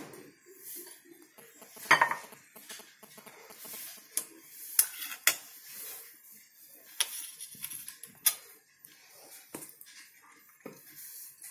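Stainless-steel mixer-grinder jar knocked and tapped against a bowl to shake out ground biscuit powder: irregular metallic clinks and knocks, the loudest about two seconds in.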